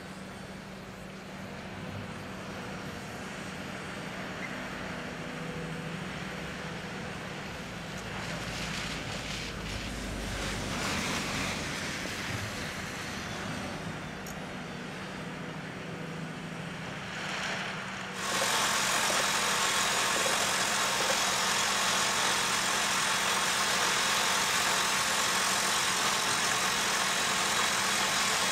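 A loaded Bell B30E articulated dump truck's diesel engine running as the truck drives off, swelling with a deep rumble for a few seconds partway through. After an abrupt cut about two-thirds of the way in, a louder, steady heavy-machinery engine noise with a strong hiss takes over.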